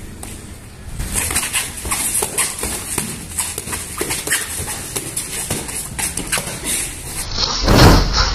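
Boxing gloves slapping and feet shuffling and scuffing on concrete during sparring: a quick, irregular run of sharp knocks. Near the end a much louder single burst stands out.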